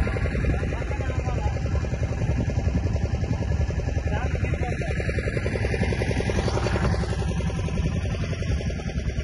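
An engine running steadily with a fast, even throb.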